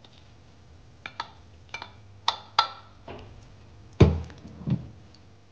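A spatula clicking and scraping against a wok as chopped lettuce is pushed off it into a pot of mung bean soup, then a louder knock about four seconds in and a smaller one just after. A steady low hum runs underneath.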